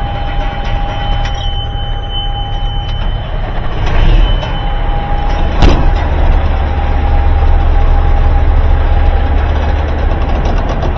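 Diesel semi-truck engine idling just after being started, with a steady high tone over it that drops out about three seconds in and comes back a second later. The engine gets louder about four seconds in, and there is a single sharp bang just before the middle.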